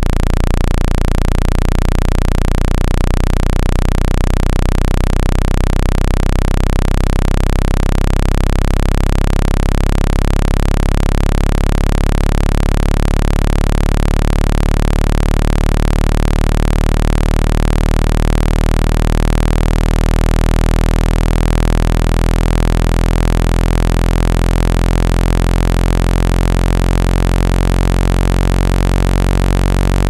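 Loud, steady low-pitched electronic tone with a buzzing stack of overtones. It pulses rapidly for the first few seconds, then holds steady. It is a synthetic tone played through a phone's speaker to vibrate water out of its charging port.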